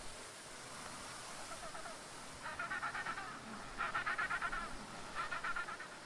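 Chinstrap penguins calling: three short bouts of rapid, pulsing calls, about two and a half, four and five seconds in, over a faint steady hiss.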